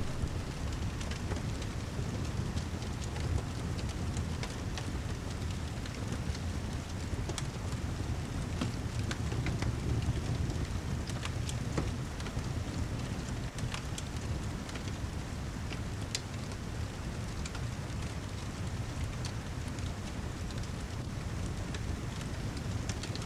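Steady heavy rain with a low, even rumble, mixed with a wood fire crackling: scattered sharp pops throughout.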